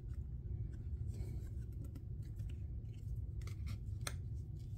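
Trading cards being handled and slid past one another in the hand: a few scattered light clicks and rubs, the sharpest about four seconds in, over a low steady hum.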